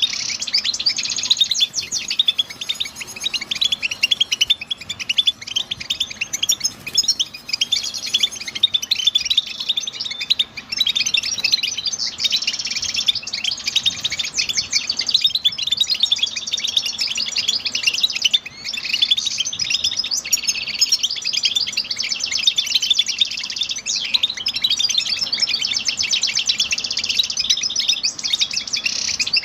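European goldfinch singing a long, rapid twittering song of liquid trills and chirps, near-continuous with only brief pauses.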